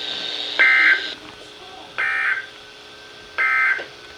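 Three short, identical bursts of buzzy EAS digital data tones, about a second and a half apart, heard over a weather radio: the end-of-message code sent three times to close the winter storm warning.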